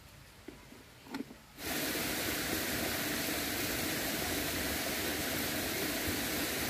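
A few faint clicks, then about a second and a half in a steady, even hiss of rushing stream water starts abruptly and runs on unchanged.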